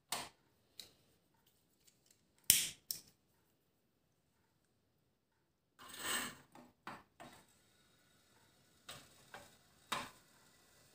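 Small metal clicks and knocks from a toy steam engine's spirit burner and its tin base being handled, the loudest about two and a half seconds in. About six seconds in there is a short hissing flare as the burner is lit, followed by a faint steady hiss and a few more clicks as the burner is slid under the boiler.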